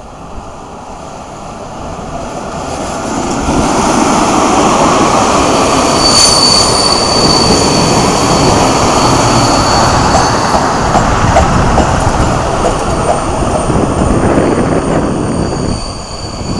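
Passenger train hauled by a Czechoslovak E 499.0 electric locomotive rolling past on the station track and slowing to a stop. The wheels clatter and rumble on the rails, growing louder over the first few seconds and then holding, with a thin high squeal of the brakes through the middle.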